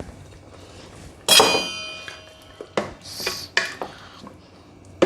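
A metal spoon clanking on a cooking pot. There is one loud ringing clang about a second in, then several lighter knocks and a scrape as the paste goes into the pot.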